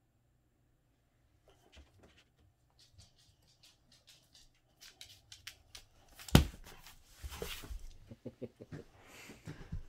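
Boxer dog pouncing at a laser dot: claws tapping and scrabbling on a laminate floor and rug, with one loud thump about six seconds in, followed by scuffling and a quick run of knocks as the dog sprawls and rolls on the floor.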